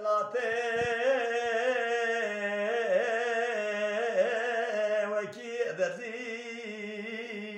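An elderly man sings a Kurdish dengbêj qesîde, a religious ode, solo and without instruments. The voice holds one long line with a wavering, ornamented pitch and grows softer near the end.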